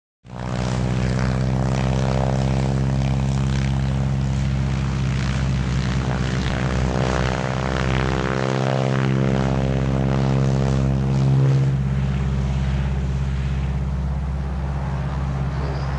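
North American Harvard trainers' nine-cylinder Pratt & Whitney R-1340 Wasp radial engines running as the aircraft roll along the runway: a loud, steady propeller drone that starts just after the opening and turns rougher and less even about three-quarters of the way in.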